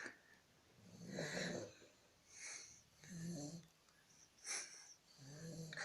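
Shar-Pei dog snoring: a run of short, wheezy snoring breaths, about one a second, some with a low buzzing rattle.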